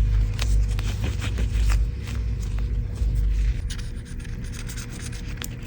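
Scraping and rubbing at grime caked on an iPhone's frame, a run of short irregular scratchy strokes over a steady low hum.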